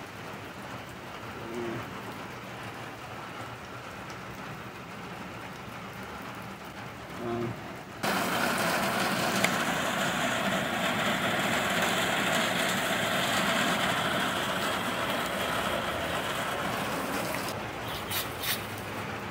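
A steady spraying hiss starts abruptly about eight seconds in and runs for about nine seconds over a fainter background hiss. It then eases off and gives way to a few sharp clicks near the end.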